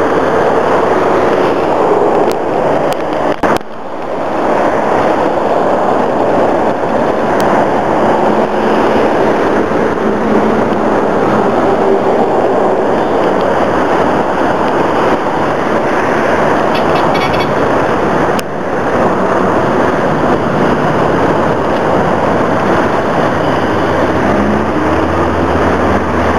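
Dense motorway traffic passing close below: a steady, loud wash of tyre and engine noise from many cars and trucks, broken twice briefly by cuts in the recording. A deeper rumble from a heavier vehicle comes in near the end.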